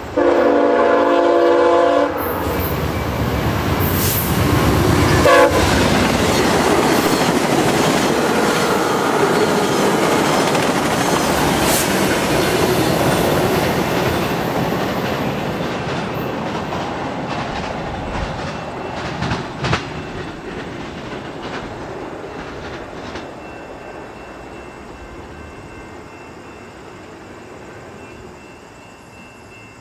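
VIA Rail GE P42DC passenger locomotive's air horn sounding one chord blast of about two seconds, then the train passing at about 68 mph. Loud rushing wheel-and-rail noise with clickety-clack over rail joints follows, fading steadily as the train draws away.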